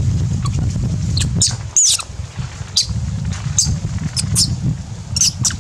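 Macaques giving short, high-pitched squeaks, about a dozen scattered through, one with a rising-then-falling glide about two seconds in. Under them runs a steady low rumble of wind on the microphone.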